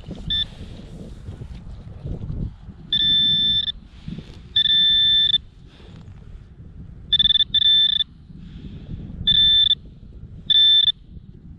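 Metal detector sounding a high, steady-pitched alert tone in about seven short beeps, each under a second, as the target in the dug hole is located, here a wheat cent.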